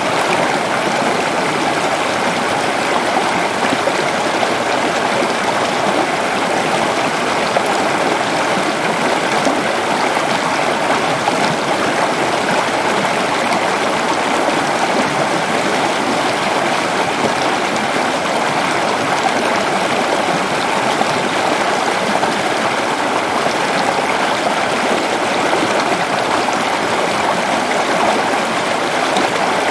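Waterfall, water rushing and splashing in a steady, unbroken roar.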